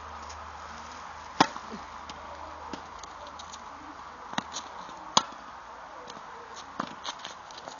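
Tennis ball hit back and forth in a rally on an outdoor hard court: sharp pops of racket strikes and ball bounces, one every second or two, the two loudest about a second and a half in and about five seconds in.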